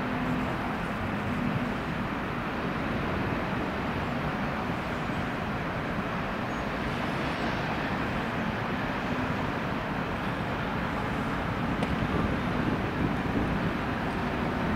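Berlin S-Bahn electric train approaching a station platform: a steady rumble of wheels on the rails mixed with outdoor city noise, growing a little louder near the end as the train draws close.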